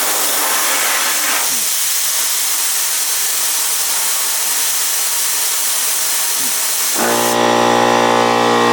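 Compressed air hissing steadily out of a two-stage air compressor's open air line as the tank is drained. About seven seconds in, the compressor kicks on with a sudden start and its motor and pump run steadily, as the drained tank has fallen to its cut-in pressure.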